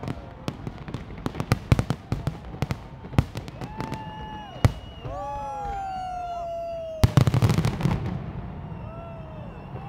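New Year fireworks display: a rapid series of sharp bangs for about five seconds, long gliding whistles in the middle, then a dense crackling cluster of bangs about seven seconds in.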